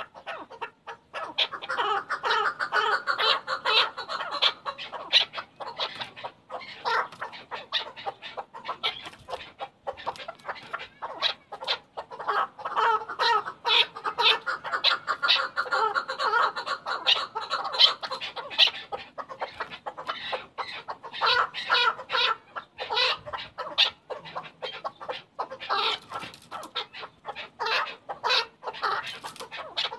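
Chukar partridge calling in long runs of rapid, repeated short notes, easing off briefly about ten and twenty seconds in.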